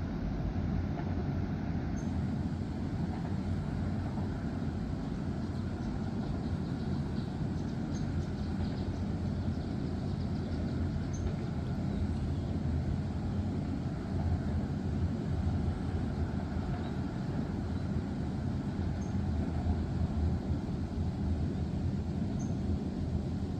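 Freight train rolling past with a steady low rumble, a few faint high ticks here and there.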